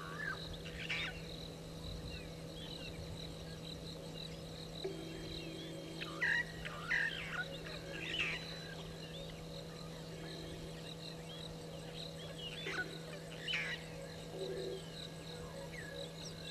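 Wild birds calling in short bursts of chirps and whistles several times, over a steady high insect-like trill and a constant low hum.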